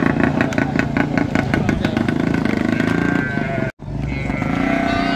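A small engine running close by with a rapid, even beat. The sound drops out for a moment near the end, and voices follow.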